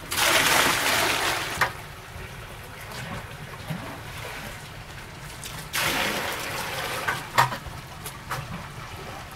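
Water splashing and sloshing in a shallow plastic koi bowl as a large koi stirs the surface. There are two bouts of splashing, one at the start and one about six seconds in, with small sharp slaps and a lighter slosh between them.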